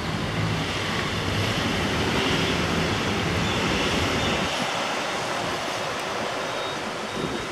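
Steady rushing outdoor noise, like vehicle traffic, with a low engine hum that fades out after about three seconds.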